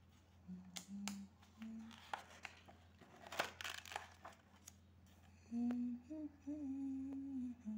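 A person humming softly: a few short low notes, then a longer wavering hum near the end. Paper rustles as a notebook page is turned about three seconds in.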